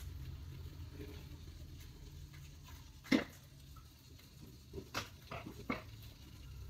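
A sauce bottle shaken upside down over a frying pan while sauce is poured in: one sharp knock about three seconds in, then several lighter taps, over a low steady hum.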